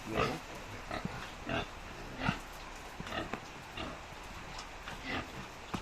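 Pigs grunting: a string of short, separate grunts at irregular intervals, about ten in all.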